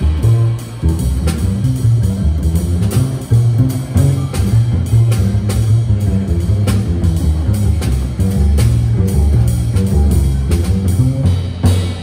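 Jazz double bass solo: a plucked upright bass playing a moving line of low notes, accompanied by drums with light cymbal and drum strokes.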